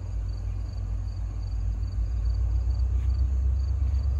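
Low rumble of a diesel train approaching a grade crossing, growing louder about two seconds in. Over it, the crossing's warning bell dings faintly about three times a second.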